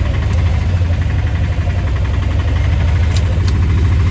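Auto-rickshaw engine running steadily with a deep drone, heard from inside the passenger cabin while riding.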